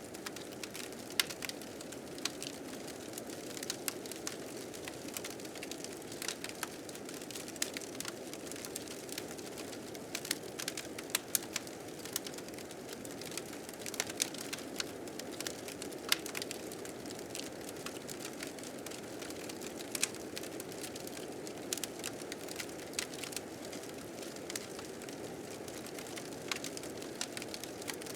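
A wood fire crackling with frequent irregular sharp snaps over the steady rushing of blizzard wind.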